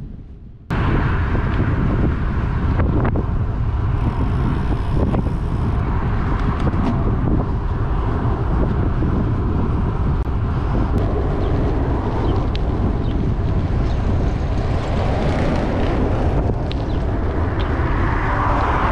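Wind buffeting the microphone of a handlebar-mounted camera on a moving road bike, a dense steady rush mixed with road noise. It cuts in suddenly just under a second in, after a brief quieter dip.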